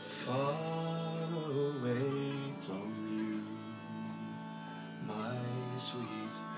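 Playback of a traditional Irish folk recording being mixed: a melody line over a steady low drone, with new phrases coming in near the start, at about 2.7 seconds and at about 5 seconds.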